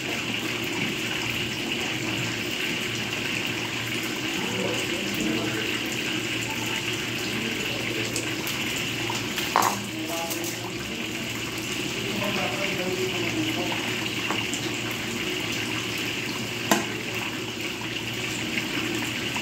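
Steady rushing hiss of water, with a low hum beneath it; a sharp knock about ten seconds in and another near the end.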